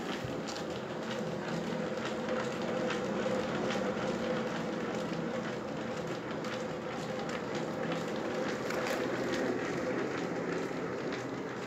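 Old water-mill drive running: a large cast-iron wheel and shaft turning in a greased plain bearing, making a steady rumble with a steady hum and many irregular light clicks and clacks.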